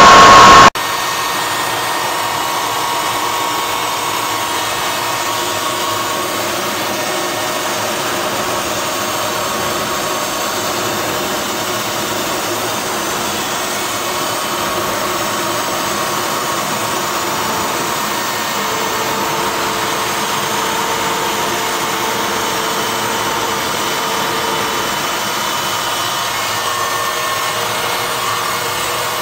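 Steady rushing roar of a jet aircraft in flight heard from inside the cockpit, engine and airflow noise with faint steady tones in it. A louder engine sound cuts off abruptly just under a second in.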